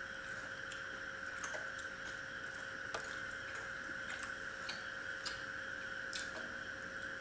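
Quiet sounds of eating by hand from steel bowls: scattered, irregular soft clicks and smacks of fingers and food, over a steady background hum.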